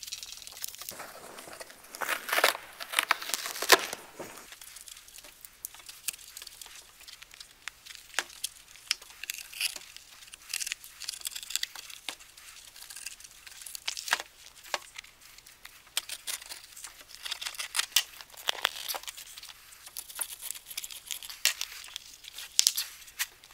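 The shot-through fabric-and-PU-foam anti-spall cover of a steel armour plate being torn and peeled open by hand: irregular crinkling, ripping and rustling of the glued fabric layers and foam.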